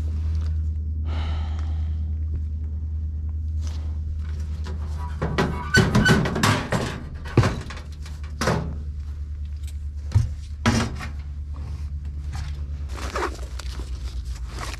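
Sheet-metal furnace access panel being handled and pulled off, a cluster of knocks and thunks in the middle stretch, over a steady low hum.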